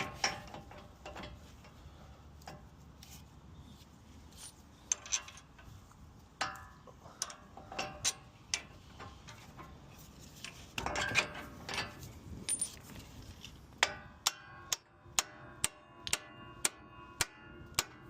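Hand tools and steel steering parts clinking and tapping against each other, with short metallic rings. Near the end comes an even run of ringing metallic ticks, about two or three a second.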